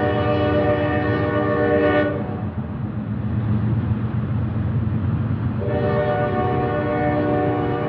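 Train horn blowing a long blast that breaks off about two seconds in, leaving the low rumble of the train going by, then sounding again about three seconds later.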